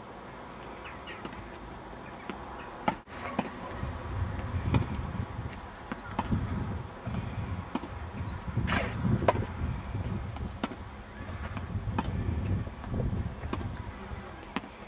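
Tennis balls being struck by rackets in a rally: sharp pops every second or two over a low rumbling noise.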